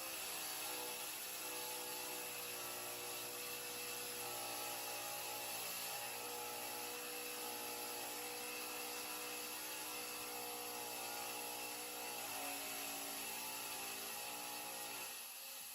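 Electric power tool motor running steadily, its pitch shifting a few times under load.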